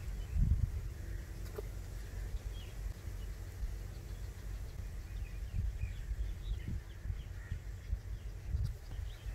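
A steady low rumble on the microphone, with small birds chirping faintly and irregularly in the background.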